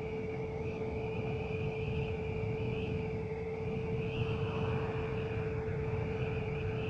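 Wind and road noise on a KTM Duke 200 coasting downhill with its engine dead: a steady rushing rumble with a constant droning hum over it.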